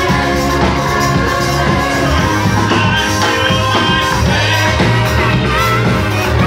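Live church praise music played loudly by a band, a steady bass line and beat under voices singing.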